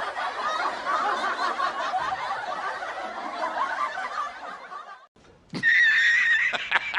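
Laugh-track sound effect: a group of people laughing together, fading out about five seconds in. After a brief silence, a different sound begins: a steady high tone broken by a few sharp clicks.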